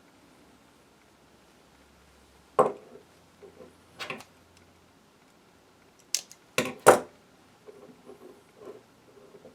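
Sharp clicks and knocks of small hand tools and parts being handled on a workbench: a single hit, another about a second and a half later, then three in quick succession about six to seven seconds in, with fainter ticks between.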